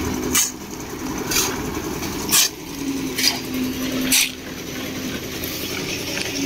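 Concrete mixer running steadily with a low hum, while five short sharp scraping knocks come about once a second.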